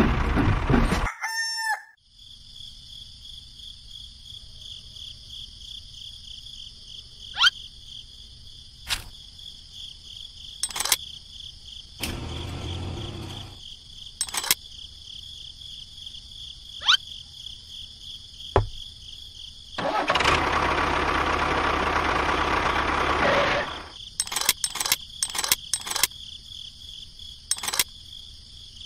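A rooster crowing once, loud and about three seconds long, roughly two-thirds of the way through. Under it runs a steady high-pitched whine, with scattered sharp clicks.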